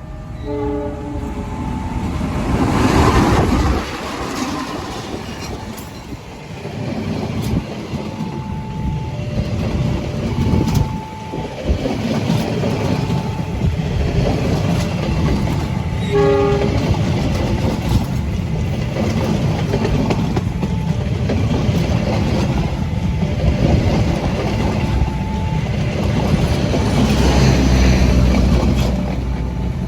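Long diesel-hauled train passing close by: locomotive engine running and wheels rolling on the rails throughout, with short two- or three-note horn blasts just after the start and again about halfway through.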